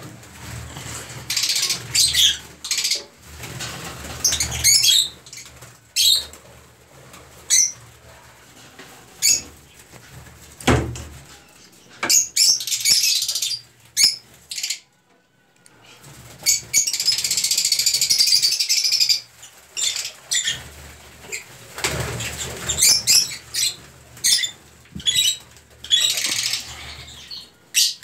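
Small cage birds flapping their wings in repeated short, irregular flurries, with one longer flurry a little past the middle.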